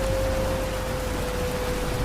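Steady rain falling, an even hiss, with a single held tone sounding under it.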